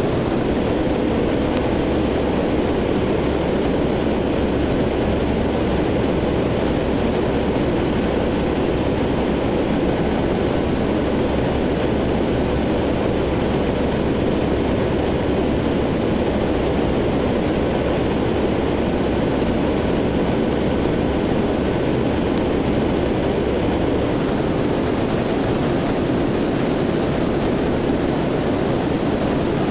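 Steady drone of a C-130 Hercules' four turboprop engines and propellers heard from aboard the aircraft in flight. The deep hum underneath thins out near the end.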